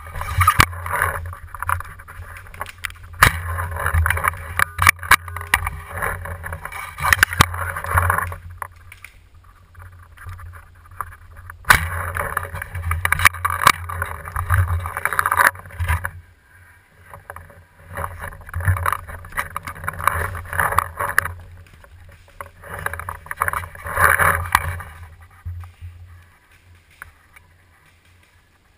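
Rustling and knocking from handling and moving a bow-mounted camera, in four stretches of several seconds each with sharp knocks among them, over a steady low rumble.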